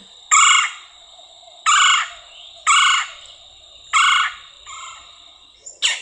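Red-bellied woodpecker calling in a recording: four loud short calls roughly a second apart, then a fainter one near the end.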